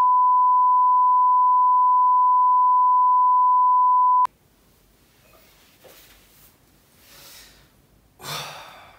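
Colour-bar test tone: a single steady 1 kHz beep that cuts off suddenly about four seconds in. Faint room sound follows, with a short burst of noise near the end.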